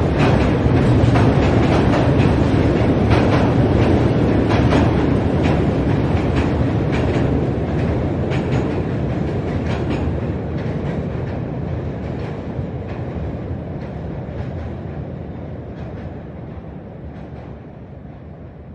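Train crossing a steel bridge: a heavy rumble of wagons with sharp, repeated clacks of wheels over the rail joints, fading steadily as the train moves away.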